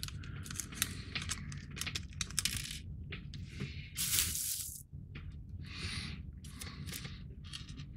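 Light clicks and small rattles of a model kit's lock pin and spring being handled and fitted together, with a few short bursts of rustling over a steady low hum.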